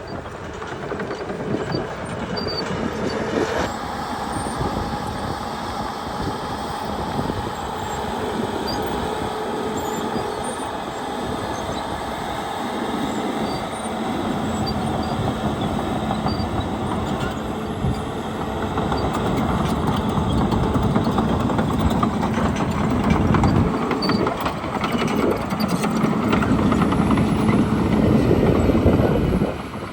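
Caterpillar bulldozer's diesel engine running steadily as it works dirt on a pond dam. It grows louder in the second half and cuts off sharply near the end.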